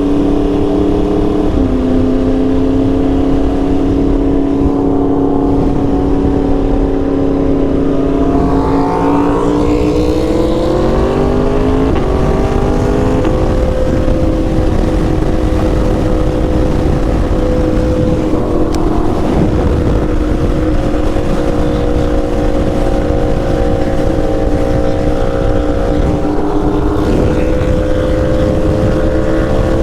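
Yamaha R1 superbike's inline-four engine running steadily under way. Its pitch climbs smoothly for a few seconds near the middle as it speeds up, then holds steady at the higher note.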